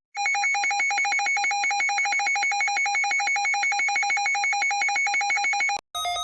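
Electronic emergency alert alarm tone, rapid even beeping at one high pitch, which cuts off near the end; a different, steadier alert tone starts right after.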